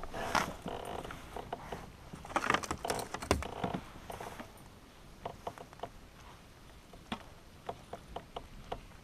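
Scattered knocks, clicks and rattles of fishing gear and a fish being handled aboard a kayak. A busy run of knocks fills the first few seconds, then a few sharp, isolated clicks follow.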